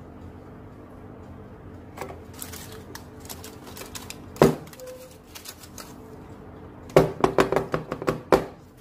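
Metal baking pans and utensils handled on a kitchen counter: light clicks, one sharp knock about halfway through, then a quick run of knocks and rattles near the end, over a low steady hum.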